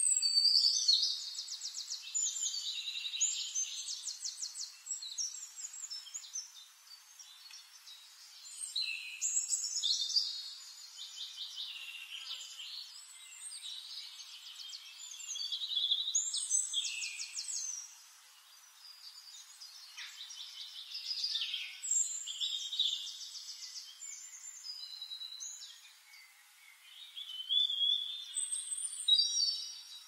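A songbird singing in repeated phrases of rapid high trills, each a few seconds long with short pauses between.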